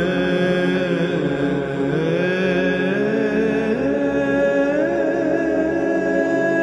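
Orthodox church chant: voices singing a slow melody of long held notes that glide smoothly from one pitch to the next.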